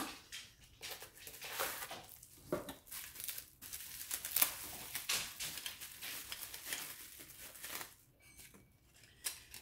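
Plastic bubble wrap crinkling and rustling as a packed part is handled and unwrapped, dying down about eight seconds in. A sharp tap of cardboard packaging comes right at the start.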